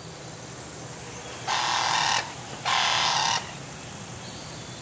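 Two harsh, noisy animal calls, each lasting under a second and about half a second apart, over a faint steady forest hiss.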